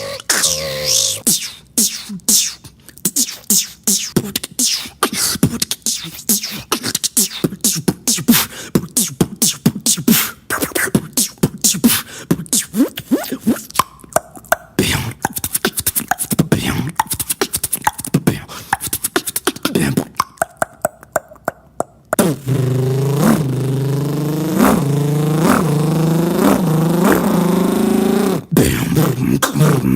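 Beatboxer's vocal percussion: a long run of fast mouth clicks and sharp percussive hits, then, about 22 seconds in, a steady buzzing pitched tone with rhythmic hits layered over it.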